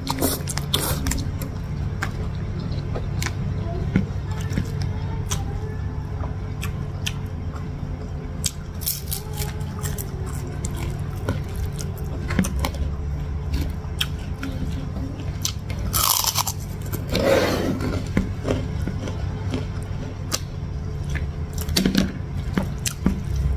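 Close-miked eating sounds: a person chewing handfuls of rice, sambal egg and greens, with many short wet mouth clicks and some crunching. A louder stretch of chewing comes about two-thirds of the way through.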